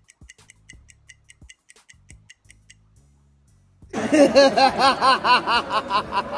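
Faint music with a steady ticking beat. About four seconds in, a man starts laughing loudly and hard, in a long run of rapid 'ha' pulses.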